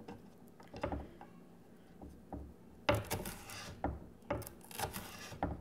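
Chef's knife dicing green bell pepper strips on a bamboo cutting board: a series of irregular knife strikes through the pepper onto the wood, a few of them longer.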